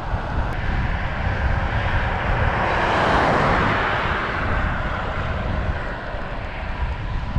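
A passing vehicle: its noise swells to a peak about three seconds in and then fades away, over a steady low rumble of wind on the microphone.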